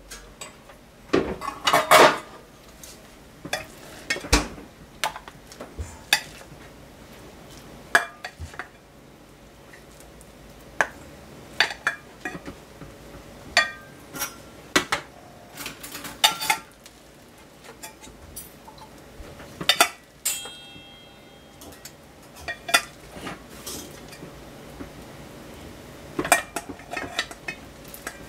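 Cutlery and cookware clinking and knocking together in irregular, scattered strikes, with one short ringing note about twenty seconds in.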